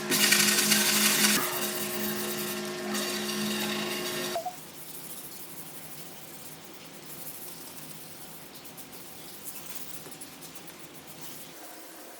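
An electric power tool's motor running with a steady hum, louder for the first second or so, then stopping abruptly about four seconds in; a faint steady hiss follows.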